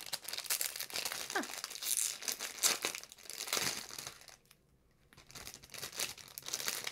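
Plastic wrapping crinkling and tearing as it is pulled open by hand, an irregular run of crackles with a brief pause a little after the middle.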